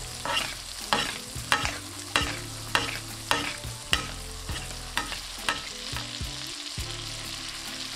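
Chicken breasts sizzling in butter in a non-stick pan while a spoon bastes them, scooping and pouring the hot butter with a sharp click or spatter about twice a second. The basting strokes stop about six seconds in, leaving the steady sizzle.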